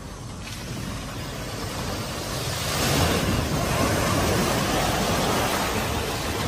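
Floodwater rushing and splashing as a car ploughs into a deep flooded ford, the water surging against the front of the car. The noise builds over the first few seconds and then stays loud.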